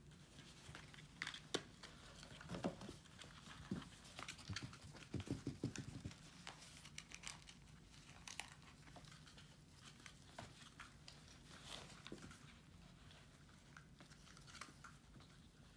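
Faint, scattered crinkling and rustling with small taps as kittens paw and bite at a tinsel-covered mortarboard, gold ribbon and paper diplomas, with a brief busier flurry about five seconds in.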